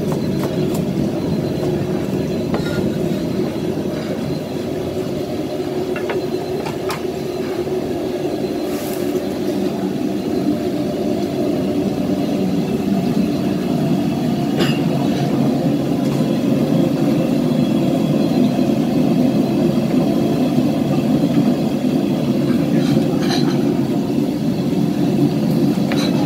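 Steady low roar of a commercial gas wok burner running on high flame in a busy stall kitchen, growing a little louder in the second half. A few sharp clicks and clanks of knife and metal utensils come on top of it.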